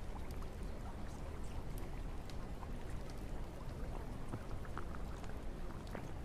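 Steady rain: a continuous even hiss with scattered drops ticking.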